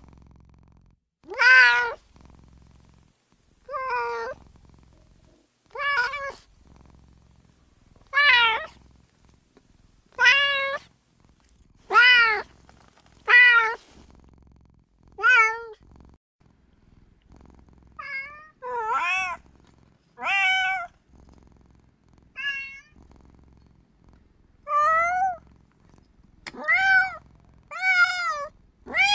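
A female domestic cat meowing over and over: short meows, each rising then falling in pitch, one every second or two, coming quicker near the end.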